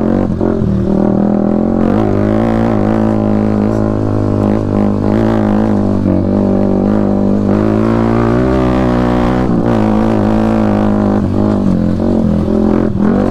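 Yamaha WR155R's single-cylinder four-stroke engine pulling the bike through a technical trail section, its revs rising and falling with the throttle, with a few brief knocks.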